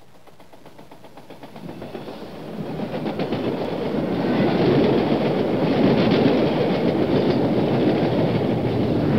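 A train approaching, growing steadily louder over the first four seconds or so, then running on steadily with a fast run of wheel clicks over the rails.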